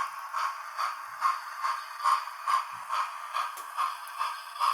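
Model train running round the layout's outer track with a regular clicking about twice a second, running through without cutting out on a dead section.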